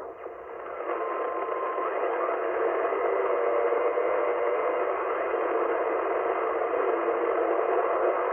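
Steady hiss and static from a Yaesu FRG-100 receiver on longwave, heard through its narrow AM audio passband, with no programme audible. About a second in, a brief steady whistle sounds for just under a second.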